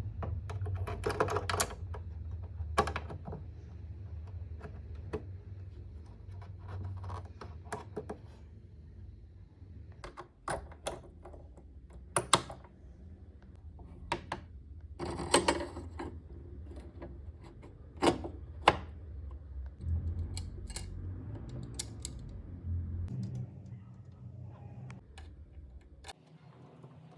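Irregular clicks and light knocks of small sewing machine parts being fitted back into place by hand, over a low steady hum that stops near the end.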